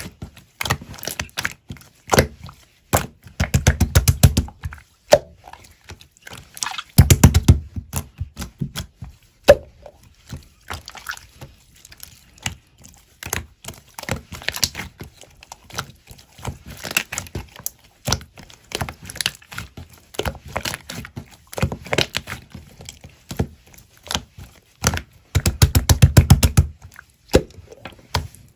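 Close handling sounds: many sharp clicks and taps, with louder low rumbling stretches about four, seven and twenty-six seconds in.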